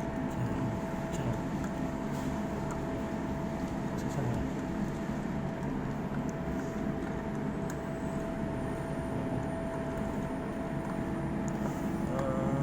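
Steady mechanical hum with a faint constant tone, unbroken throughout.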